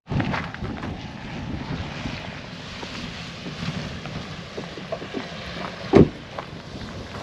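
Wind blowing across the microphone, a steady rushing noise, with one loud thump about six seconds in.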